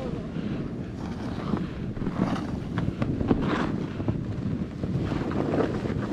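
Wind buffeting the microphone during a fast descent through powder snow, with several hissing swishes as a snowboard's edges carve turns through the snow.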